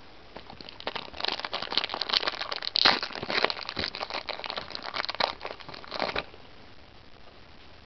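Foil Yu-Gi-Oh booster pack wrapper crinkling and crackling as it is handled and opened by hand. The crinkling stops about six seconds in.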